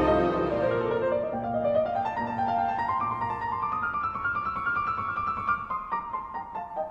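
Background music led by piano, its melody climbing note by note and then stepping back down.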